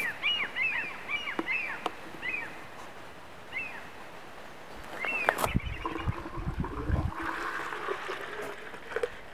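A small bird chirping repeatedly for the first few seconds, then a sharp knock, then water being poured from a plastic bottle into a plastic bottle reservoir, a steady rushing pour.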